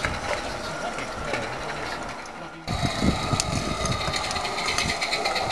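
Garden-scale model trains on 16mm-scale track: a steady mechanical rattle of small wheels clicking over the rails. About halfway through the sound becomes louder, with repeated low thumps and fine clicks as a live-steam locomotive hauls its coaches.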